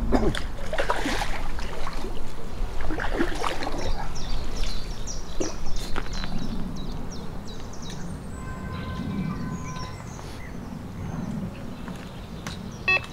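Small birds chirping over a steady low rumble of wind, with a few short rustling noises in the first few seconds.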